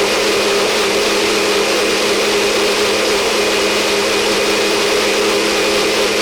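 Electric kitchen blender running steadily at a constant speed, its motor whirring with a steady hum under a loud whooshing of the blades churning the contents.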